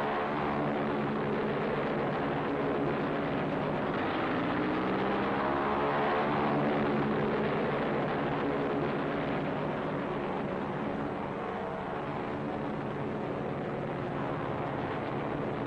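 Propeller engines of navy floatplanes running steadily, with the engine pitch swinging up and down between about four and seven seconds in.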